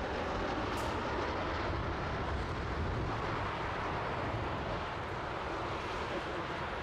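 Embraer E190 regional jet on final approach with gear down, its turbofan engines giving a steady rushing noise that neither rises nor falls.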